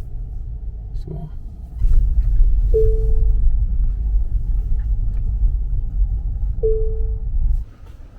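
Low, steady rumble of a car driving, its road noise, which cuts off suddenly near the end. Two short single-pitch tones sound about four seconds apart.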